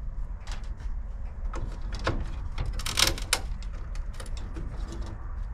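Scattered sharp clicks and clacks of brittle old plastic grille parts being handled and worked loose by hand, the loudest cluster about three seconds in, over a steady low wind rumble on the microphone.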